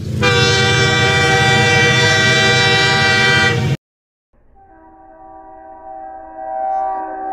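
Two train horn blasts. The first is a loud, steady horn note with a heavy rumble beneath, lasting nearly four seconds and cutting off suddenly. After a short gap, a quieter, muffled chord of horn notes swells in.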